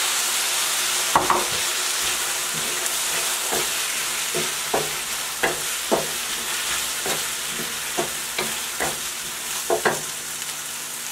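Stir-fried vegetables and sauce sizzling in a pan as the sauce thickens, fading a little over the stretch. A utensil stirs and scrapes the pan in short strokes, about one or two a second.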